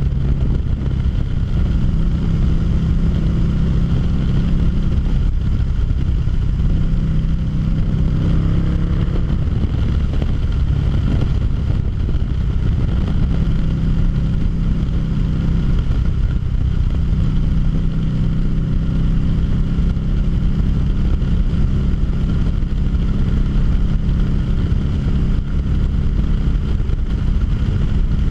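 2013 Harley-Davidson V-Rod Muscle's liquid-cooled V-twin running steadily at cruising speed, with wind noise on the microphone.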